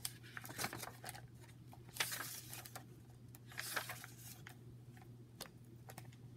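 Pages of a hardcover library book with a plastic jacket being turned by hand: several short bursts of paper rustling and plastic crinkling, with a few soft clicks.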